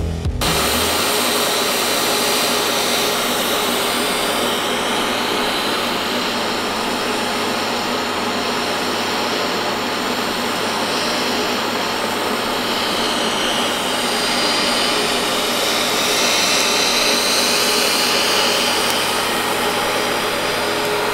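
Steady hiss and hum of TIG welding as a steel pipe elbow is welded onto an exhaust flange, the arc held without a break.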